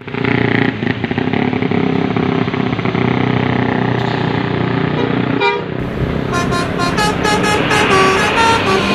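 Tour bus telolet horns, the multi-tone musical air horns of Indonesian buses, sound a held chord over a running engine. From about six seconds in they play a quick melody of short notes stepping up and down.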